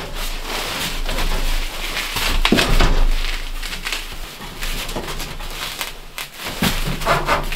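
Black sheet-metal stovepipe being worked onto a small box wood stove: irregular metal scraping and knocking as the pipe sections are pushed and twisted together.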